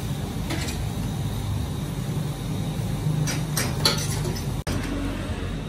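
A metal spoon clinking and scraping against a stainless-steel tray and cup as shaved ice is scooped, with a few sharp clinks in the second half. A steady low hum runs underneath.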